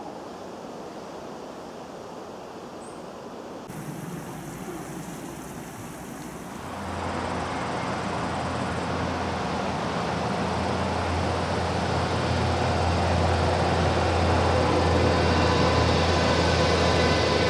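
A quiet, steady rushing background, then from about seven seconds an approaching DB class 101 electric locomotive hauling an InterCity train, growing steadily louder. It has a low hum, and steady higher tones come in near the end.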